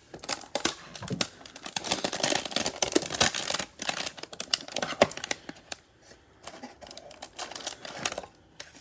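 Basketball trading cards being handled and flipped through: a dense run of quick clicks and rustles, busiest in the first half and thinning out after about six seconds.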